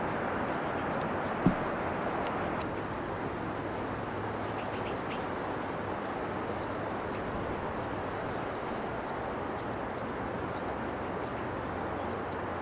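Small birds calling, short high chirps repeated many times at an uneven pace, over a steady rushing hiss. One sharp click about a second and a half in.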